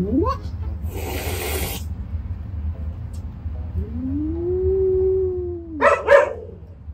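Cats yowling: long drawn-out calls that glide up and down in pitch, one lasting about two seconds. There is a short hissing burst about a second in and two short sharp cries near the end.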